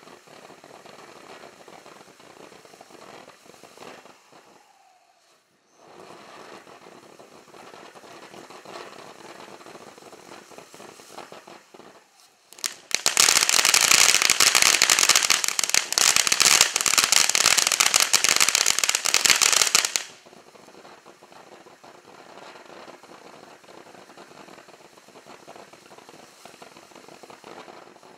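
Winda Neon Jelly Beans firework fountain spraying coloured stars with a steady fizz, dropping away briefly about five seconds in. About thirteen seconds in it breaks into loud, dense crackling for about seven seconds, then goes back to fizzing.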